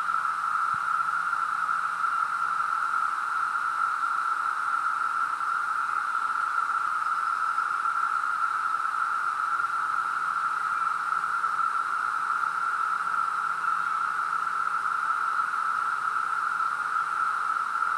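Chorus of Brood II periodical cicadas (Magicicada): many males calling together in one continuous, steady drone at a single pitch.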